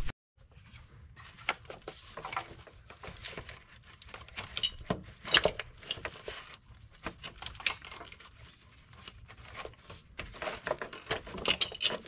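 Irregular light clicks, clinks and rattles of hand work on a car engine: small metal parts, fasteners and tools being handled as wiring and brackets are refitted.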